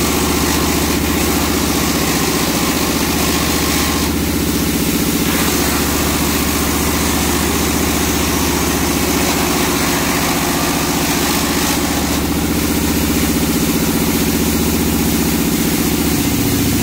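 Wood chipper driven by a single-cylinder diesel engine, running steadily under load as it chips branches, with a constant rush of wood chips thrown out of the discharge chute.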